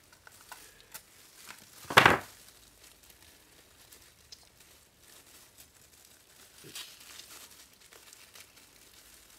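A discharged LiPo cell's aluminium-laminate pouch being torn and crumpled by gloved hands. There is one short, loud rip about two seconds in, then faint crinkling of foil and thin plastic gloves, with a small flurry near the end.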